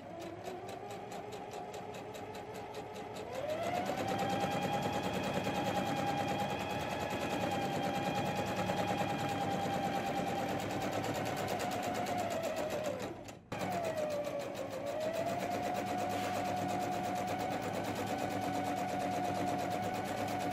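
Electric domestic sewing machine sewing a long gathering stitch along a fabric edge. It starts slowly and speeds up about three seconds in, stops briefly about two-thirds of the way through, then starts again and runs steadily.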